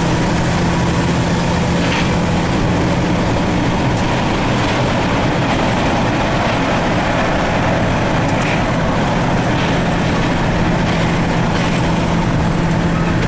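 Steady drone of a semi-truck's diesel engine with road and wind noise, heard inside the cab at highway cruising speed.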